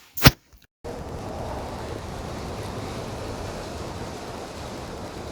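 Squall-force blizzard wind rushing steadily and buffeting the microphone, starting about a second in after a sharp click.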